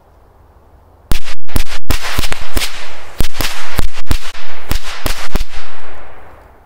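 A bundle of firecrackers going off: about twenty loud, sharp bangs in quick, irregular succession, starting about a second in and dying away near the end.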